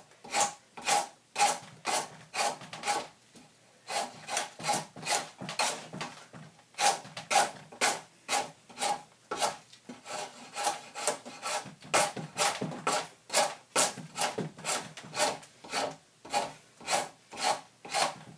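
Draw knife shaving the end of a log down to a round tenon: quick scraping strokes of the blade peeling wood, about two a second, with two short pauses.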